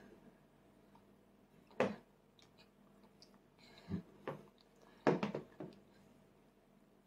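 Sharp plastic knocks and clicks from a toddler's straw sippy cup being set down on a high-chair tray and handled: one clack about two seconds in, two lighter knocks near four seconds and a quick run of clicks around five seconds.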